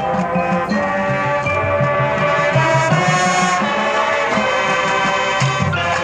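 High school marching band playing its field show: sustained brass-led chords over a steady pulsing low end.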